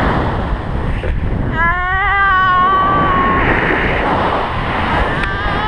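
Wind blowing hard over the microphone during acrobatic paragliding turns. A person gives one long, high yell from about one and a half to three and a half seconds in.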